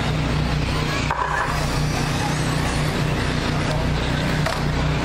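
Radio-controlled short-course race trucks running on the track, their motors whining as they pass, over a steady low hum.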